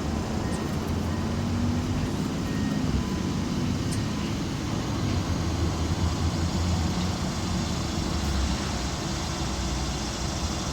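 Steady rumble of distant road traffic, with a faint engine hum that shifts slightly in pitch in the first few seconds, as of a vehicle passing.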